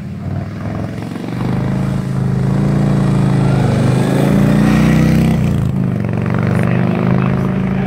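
Police Harley-Davidson touring motorcycle's V-twin engine running at low speed, getting louder as the bike comes close past about halfway through, with small rises and dips in engine speed, then easing off a little.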